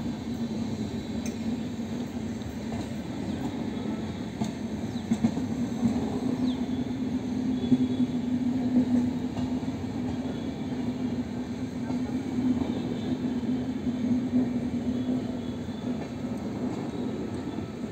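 Passenger train's coaches rolling past on the rails: a steady rumble of wheels on track with a low hum.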